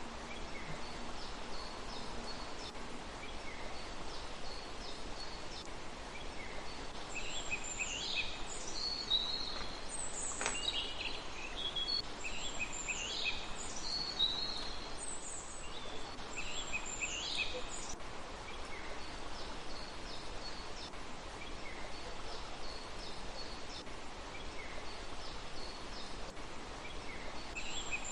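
Small birds singing and chirping over a steady background hiss. A run of louder song phrases falls in the middle, fainter short chirps repeat throughout, and there is a single sharp tick about ten seconds in.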